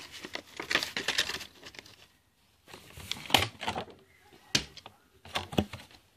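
Handling noise: a stretch of rustling about a second in, then a run of sharp clicks and knocks from about three seconds in.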